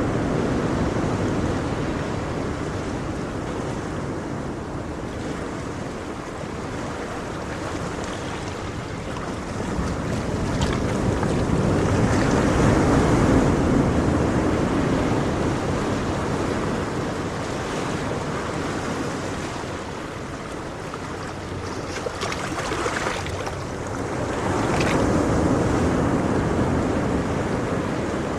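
Ocean waves breaking and washing up the shore, a steady rush of surf that swells and ebbs slowly. It builds to its loudest about halfway through and again near the end, with a brief hiss of spray as some waves break.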